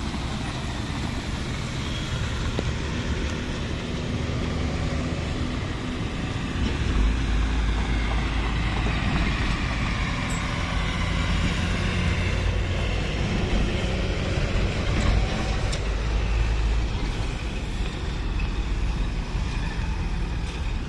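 Heavy diesel trucks passing close on a road, their engines and tyres running together. A deep rumble builds about seven seconds in, stays loud for about ten seconds, then eases off.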